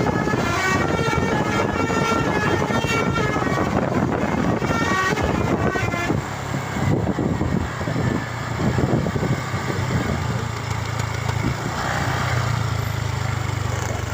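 Basuri telolet multi-tone bus air horn playing a rapid tune of short stepping notes, stopping about six seconds in. The bus's engine runs underneath with a low rumble, which is left on its own after the horn stops.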